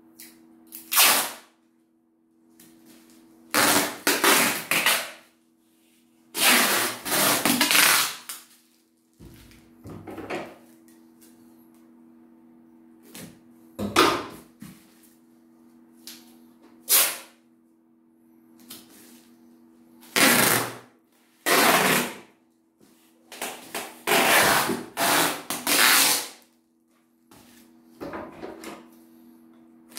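Adhesive packing tape being pulled off its roll in ripping screeches, about ten strips, some brief and some drawn out for a second or two, as it is laid around a plastic-wrapped box. A faint steady hum runs underneath.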